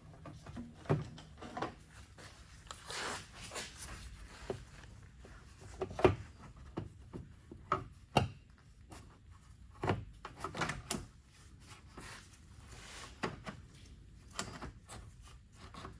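Scattered knocks, clicks and rubbing of plastic and metal parts being handled and worked into place under a car, with a sharper knock about six seconds in.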